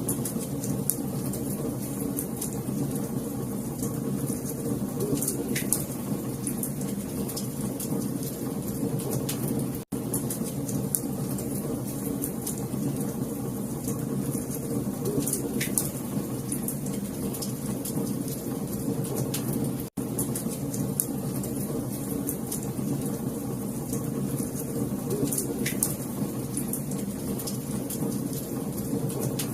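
Fireplace fire crackling: a steady rush with scattered sharp pops. It is a ten-second loop that cuts out for a split second about every ten seconds.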